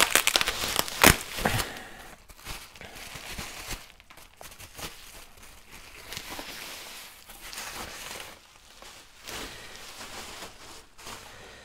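Bubble wrap crinkling and rustling as it is handled and pulled away during unpacking, with a run of sharp crackles in the first couple of seconds, then softer, irregular rustling.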